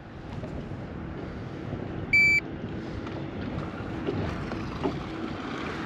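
A handheld digital fishing scale gives a single short electronic beep about two seconds in as it registers the weight of a hanging largemouth bass. Steady low wind noise runs underneath.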